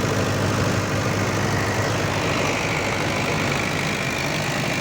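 Mahindra generator's engine running steadily at a constant speed. A faint high whine comes in about two seconds in.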